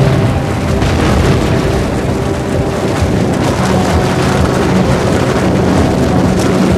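Dense, continuous rumble and crashing of a skyscraper collapsing in a cloud of falling debris, with held tones of a dramatic music score underneath.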